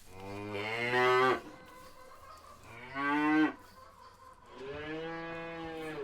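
Cattle mooing: three long calls, the first two rising and the third held steady to the end.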